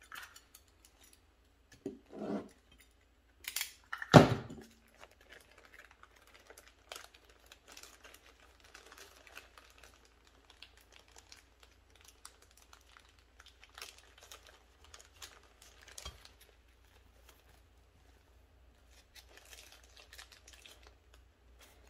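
Hands handling small carburetor parts on a workbench: a couple of short knocks in the first few seconds, the loudest about four seconds in, then faint scattered clicks of small metal parts and crinkling.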